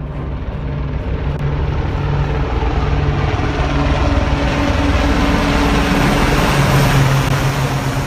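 Westland Sea King helicopters flying overhead: a steady rotor and turbine roar that grows louder as they approach and pass close.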